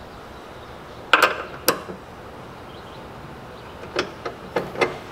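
Open-end wrenches clinking on a nut and bolt as a double nut is snugged down on a linear actuator's mounting bolt: two sharp metallic clinks about a second in, then a few lighter clicks near the end.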